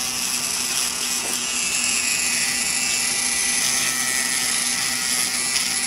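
Electric nail drill running steadily, its small pointed bit grinding against the fingernail along the cuticle: a constant motor whir with a high hissing buzz.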